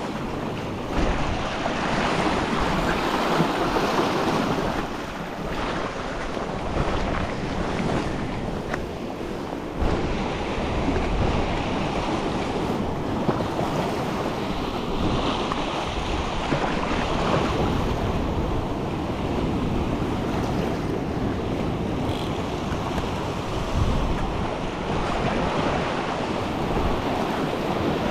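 Ocean surf washing against coastal rocks in a continuous rush, with wind buffeting the microphone.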